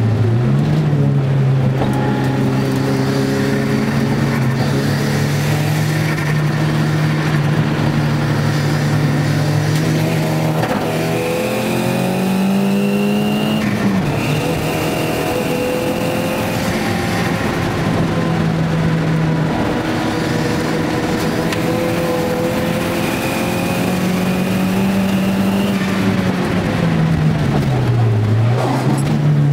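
Nissan Gazelle's turbocharged CA20DET four-cylinder, heard from inside the cabin at racing speed. The engine note holds steady, climbs and falls back as the car is driven hard, and dips sharply near the end before picking up again. A thin high whine comes and goes above it.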